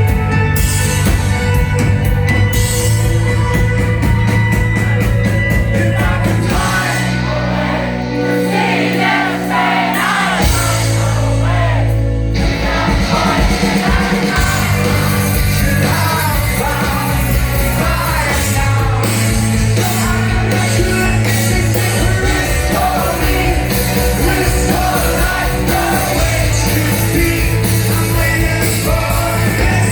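Live rock band playing loudly, with a singer over guitars and drums. About seven seconds in the bass and drums drop back for a few seconds, then the full band comes back in.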